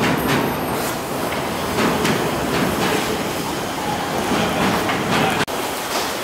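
A train rumbling and clattering over the railway viaduct above the market, with a brief break in the sound about five and a half seconds in.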